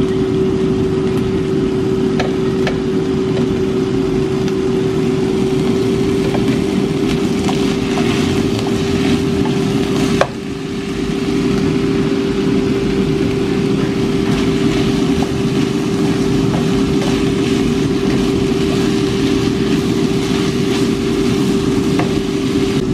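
Sliced deer meat sizzling in a frying pan as it is stir-fried, with small clicks from the wooden spatula, all over a loud, steady machine hum. About ten seconds in there is one sharp knock and the level dips briefly.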